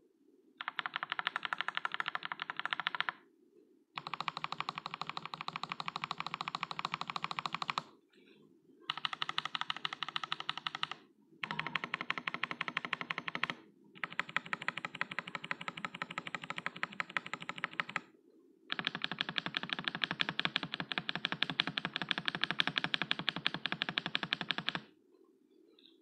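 Fast typing on a NextTime75 (LǎoXuē75) mechanical keyboard fitted with MMD Panda switches and Aifei Olivia–style keycaps. The keystrokes come in six quick runs separated by short pauses, and the longest run is near the end.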